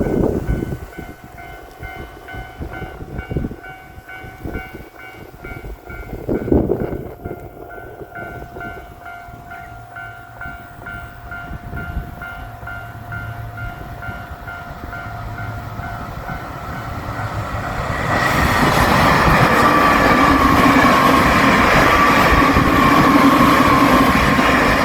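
Railroad crossing warning bell ringing in a steady repeating clang. About 18 seconds in, a limited express electric train passes through the crossing at speed, its loud wheel and rail noise swamping the bell, with a slowly falling whine.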